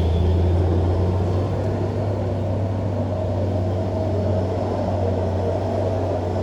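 Heavy road vehicle's engine running with a steady low drone.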